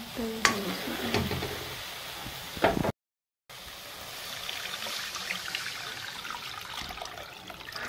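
A metal ladle knocks and scrapes in a metal wok of frying small fish a few times. About three seconds in, water starts pouring into the wok in a steady splashing stream.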